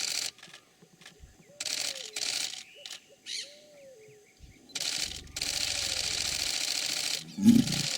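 Yacare caiman giving a deep, low bellow near the end, the loudest sound here, over repeated bursts of high hissing background noise.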